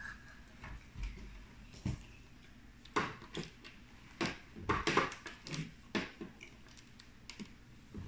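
Alligator-clip test leads and small bulb holders being handled on a wooden tabletop: scattered light clicks and taps as clips are opened, clamped and set down, busiest in the middle few seconds.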